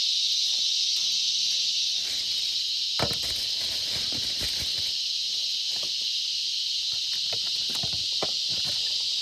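Steady, high-pitched drone of insects, with scattered light knocks and clicks from about three seconds in.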